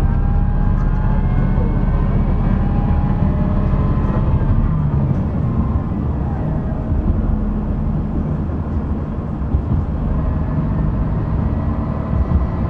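SKR311, a Shigaraki Kohgen Railway SKR310-series diesel railcar, running along the line: a steady low engine drone with the rumble of the wheels on the track, and faint whines that glide up and down. The lowest part of the drone eases about five seconds in.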